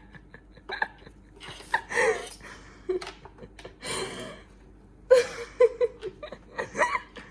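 Short bursts of a person's voice: laughter, gasps and breathy sounds, with pauses between them.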